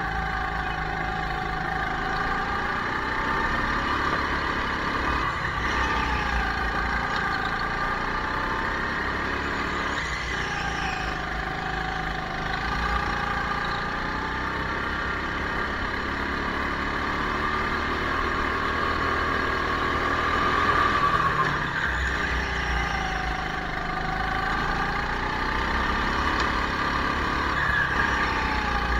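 Racing go-kart's motor running at speed, its pitch dropping into each corner and climbing again on the straights, several times over.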